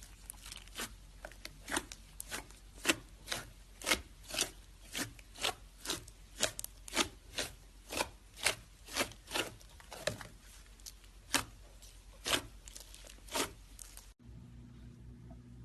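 Slime being kneaded and pressed, giving a regular run of crisp pops and clicks about two a second. About fourteen seconds in, this cuts off abruptly to a steady low hum.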